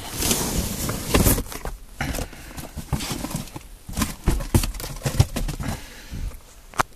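Cardboard boxes handled and shifted: rustling and scraping of cardboard with irregular knocks and bumps as the kit's box is pulled out of its shipping carton, along with handling noise from the moving camera.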